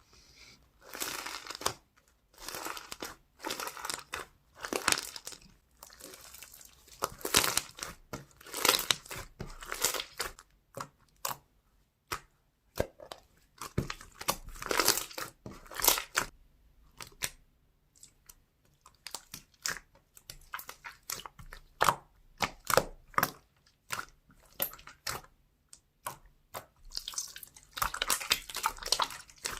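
Slime being played with by hand, giving irregular bursts of sticky crackling, small pops and clicks with short pauses between handlings.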